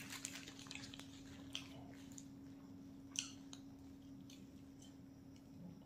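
Faint, scattered crinkles of the clear plastic film wrapped around a long roll as it is lifted and bitten into, with soft chewing, over a steady low hum.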